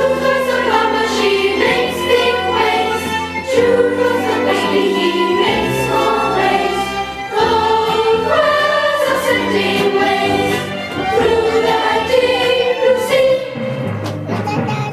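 A group of young children singing a song together over a sustained instrumental accompaniment.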